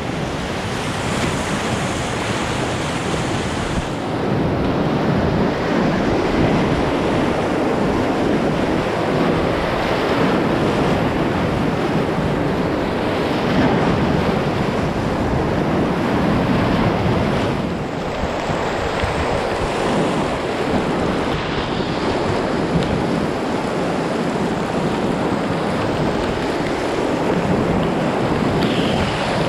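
Whitewater rapids rushing and splashing around an inflatable kayak, a loud, steady wash of water that swells and eases a little, with wind buffeting the microphone.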